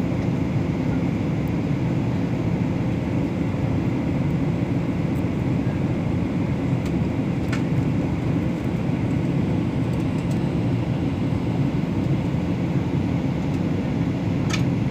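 Steady drone inside an airliner's cabin in flight, the engines and rushing air making an even low rumble. A faint click sounds near the end.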